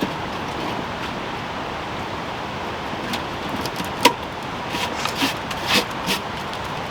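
Steady rushing of a waterfall. From about four seconds in it is overlaid by a few sharp clicks and knocks of sticks and kindling being handled at a wood-burning tent stove.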